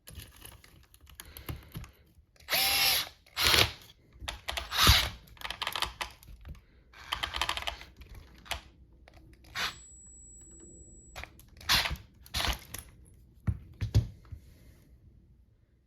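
Universal socket adapter set being handled and worked: irregular clicks, rattles and short whirring bursts, with a thin high steady whine for about a second and a half past the middle.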